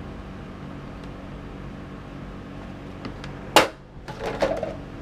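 Plastic clicks and one sharp knock from the case of an AEG 18 V battery pack being handled and opened, over a steady low hum. The small clicks come about three seconds in, the knock about half a second later, and a short clatter follows.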